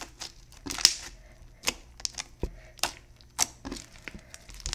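Slime mixed with micro beads and bigger beads being squeezed and pressed by hand, making about a dozen irregular sticky clicks and small pops.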